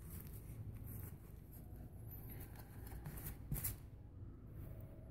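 Soft rustling and scraping of fibrous muffler packing being stuffed back into the outlet of a motorcycle muffler by hand, with one short louder scrape about three and a half seconds in.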